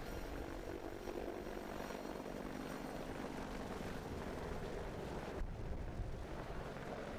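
AH-64D Apache Longbow helicopter running, its twin turboshaft engines and rotor making a steady drone with a thin high turbine whine. The high whine drops away abruptly about five seconds in while the low drone carries on.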